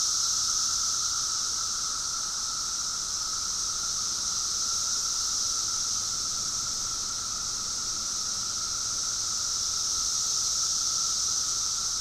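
Chorus of 17-year periodical cicadas (Magicicada): a dense, steady high-pitched hiss with a fainter steady lower tone beneath it.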